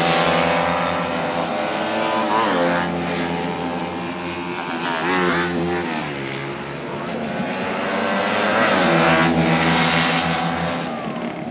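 Small 70cc racing motorcycle engines at full throttle as the bikes go by on track, the engine note sweeping up and down several times with gear changes and passes. It is louder at the start and again near the end.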